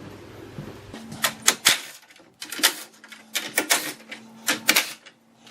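A ratchet clicking in short bursts as 10mm bolts holding the top of the bumper cover are loosened in the engine bay.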